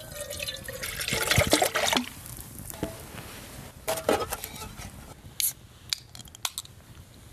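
Water being poured into a cooking pot to boil ramen, pouring for about two seconds, followed by a few short knocks and clicks.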